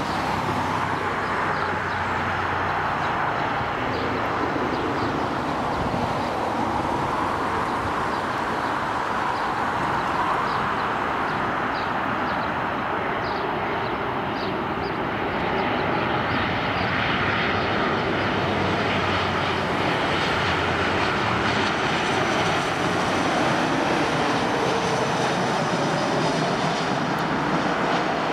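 Boeing 737-700 jet engines on final approach: a steady jet noise that grows a little louder in the second half as the airliner comes low overhead.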